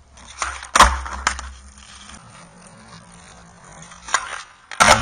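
Skateboard rolling on concrete, then the board cracking sharply against the ground about a second in, the loudest sound, with a lighter clack just after. Near the end the board smacks the concrete again with a clatter during a hospital flip.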